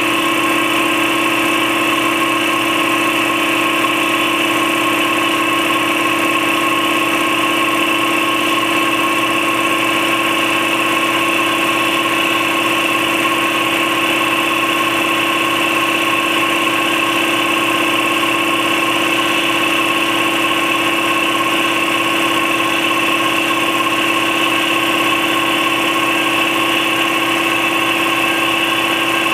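Campbell Hausfeld 60-gallon twin-piston air compressor with a 3.2 hp, 240-volt electric motor running steadily at an even pitch as it pumps the tank up from empty, late in the fill and close to its 135 psi shut-off.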